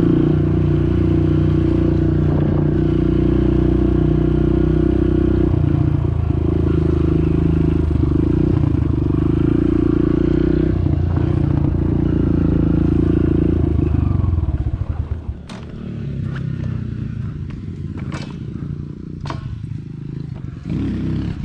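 Kawasaki KLX pit bike's small four-stroke single-cylinder engine running steadily under throttle, heard up close from the rider's seat. About fourteen seconds in the throttle closes and the engine drops to a quieter, lower running, with a few sharp clicks.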